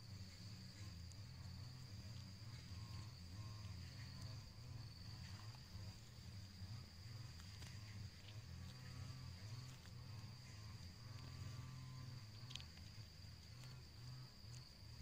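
Faint, steady high-pitched trill of a calling insect, over a low, uneven rumble.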